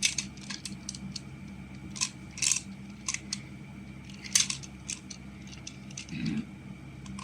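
Plastic magnetic building tiles clicking and clacking as they are handled and snapped together: many short, irregular clicks, the loudest about four and a half seconds in.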